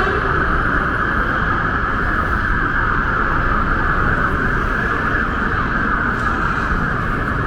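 Night-time city street noise: a steady, loud hiss holding at one pitch over a low traffic rumble, unchanging throughout.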